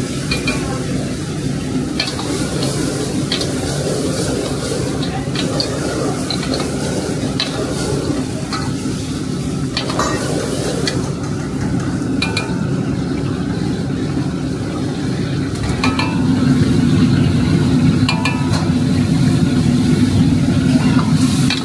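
Food stir-frying in a wok: sizzling over a steady low rumble, with scattered sharp clinks of a utensil against the pan. It gets louder about sixteen seconds in.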